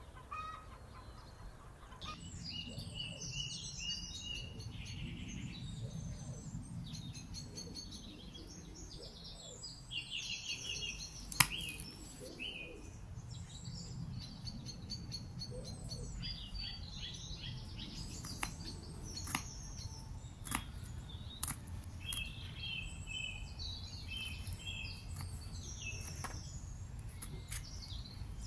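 Small songbirds chirping and twittering over a low steady rumble, with scattered sharp clicks and taps; the loudest is a single sharp click about eleven seconds in.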